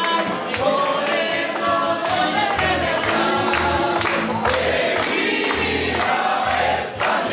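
Live acoustic band singing and playing: several voices, a woman's among them, over a strummed guitar and two smaller plucked string instruments, with the audience clapping along to the beat.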